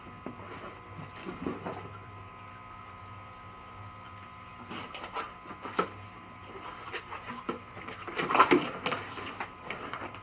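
Rustling, crinkling and light clicks of a siren kit's parts and packaging being handled and unpacked, coming in irregular spurts and loudest near the end, over a steady background hum.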